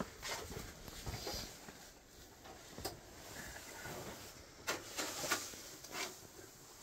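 Scattered knocks, clicks and rustling from gear being handled and fabric brushing inside a small ice hut.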